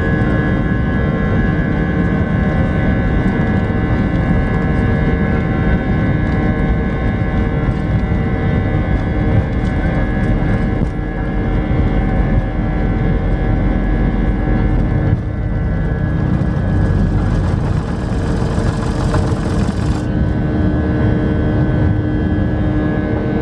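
Airbus A319 jet engines at takeoff thrust, heard inside the cabin: a steady whine of several tones over the heavy rumble of the takeoff roll. About two-thirds of the way through the rumble drops away as the aircraft lifts off.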